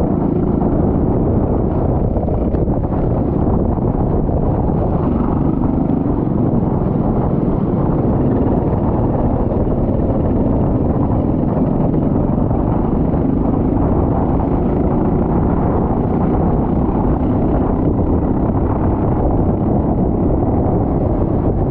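Go-kart engine running continuously, its pitch rising and falling a little as it is driven around the wet track.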